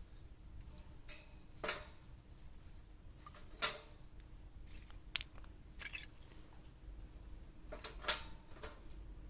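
Irregular sharp clicks and light knocks, about a dozen, with the two loudest about three and a half and eight seconds in.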